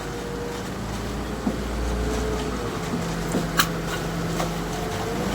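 Engine of an Ajax self-loading concrete mixer running steadily with a low rumble and a faint steady whine, with a sharp click a little past halfway.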